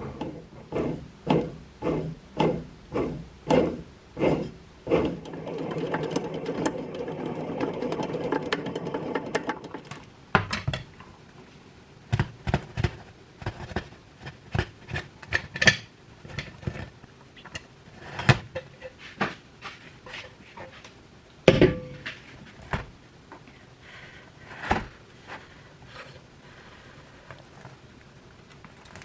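A run of knocks about two a second, then a few seconds of fast, even rattling, then scattered clicks and taps with one sharper, louder knock.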